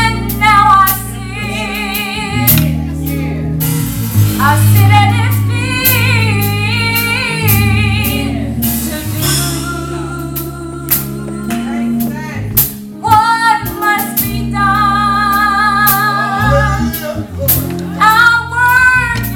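Female gospel vocal group singing live into microphones, the held notes wavering with vibrato, over instrumental backing with steady low notes and a beat.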